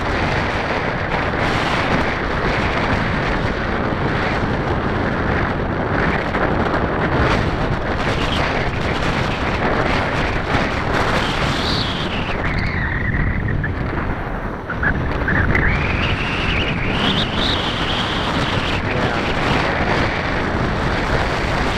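Wind buffeting the microphone, with an SAB Goblin 770 RC helicopter flying overhead. Its whine falls in pitch around the middle, then climbs again.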